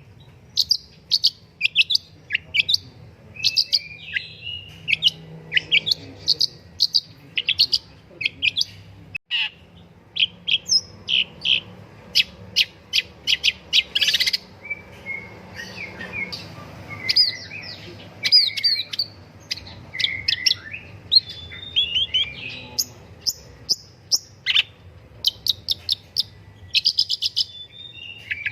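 Long-tailed shrike (pentet, cendet) singing loudly: quick runs of sharp, high chirping notes broken by short slurred warbling phrases, repeated over and over.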